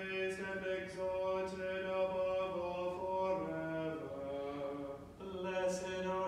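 A man's voice chanting a liturgical canticle on a single reciting tone. The pitch steps down to a cadence about three seconds in, and after a breath about five seconds in he takes up the reciting tone again.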